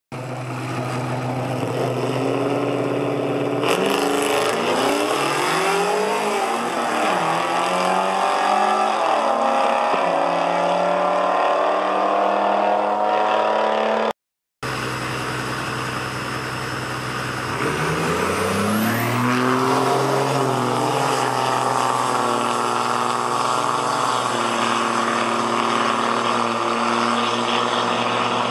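Stock muscle-car engines on a drag strip: the engines hold steady revs on the line, then launch and accelerate hard, the pitch climbing and dropping back at each gear change. A brief cut to silence falls about halfway through, and then a second launch follows the same pattern.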